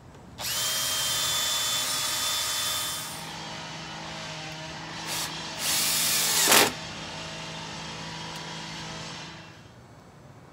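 Cordless drill driving a deck screw into a wooden obelisk frame: a loud motor whine starts suddenly and runs about two and a half seconds. A lower steady hum follows, then a second loud burst about six seconds in that ends with a falling pitch as the motor slows.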